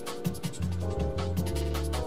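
Background music with a steady drum beat over held bass notes and chords.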